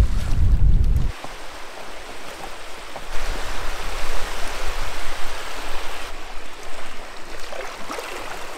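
Wind buffeting the microphone for about the first second, then choppy lake waves washing and splashing against a rocky shore, swelling in the middle.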